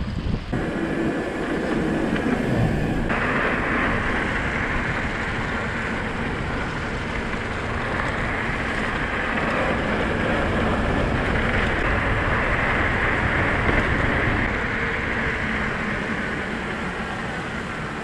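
Mountain bike riding along a trail, filmed on a bike- or helmet-mounted GoPro: steady tyre noise and rattle mixed with wind on the microphone, growing brighter about three seconds in.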